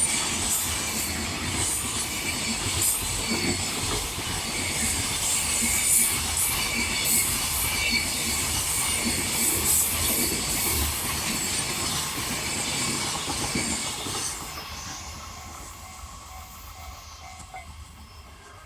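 Freight train hauled by an EF64 electric locomotive rolling past: wheels clacking over the rail joints, with high wheel squeal. The noise fades steadily from about 14 seconds in as the train moves away.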